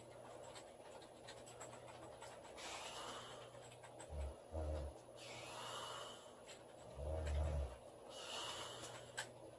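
A woman snoring in her sleep: deep low snores on the in-breath, a short double snort about four seconds in and a longer snore about seven seconds in, each followed by a breathy out-breath.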